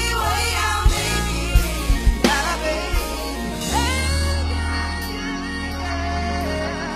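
Live gospel music: a singer's sustained, sliding vocal runs over a band with a heavy bass line and a few drum hits in the first three seconds.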